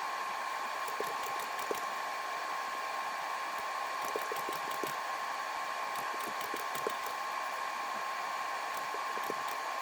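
Steady machine whir with a constant high whine, overlaid by light, irregular clicks and taps of small parts being handled during battery pack repair work.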